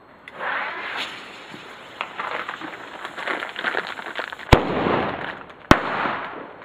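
Helios 'Taipeh' cube firecrackers going off: a hiss with small crackles for about four seconds, then two sharp, loud bangs a little over a second apart.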